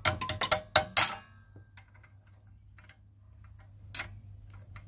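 A bicycle spanner on the go-kart's clutch bolt is being tapped to tighten it, giving sharp metallic clinks that ring briefly. About six clinks come quickly in the first second, then a single clink about four seconds in.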